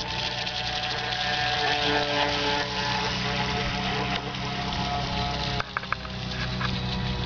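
Ansmann Lugano RC runabout running at speed: the steady whine of its Kyosho AP-29-type electric motor and the hum of its drive shaft, which the owner says vibrates badly. The sound changes abruptly a little past halfway, with a few sharp clicks just after.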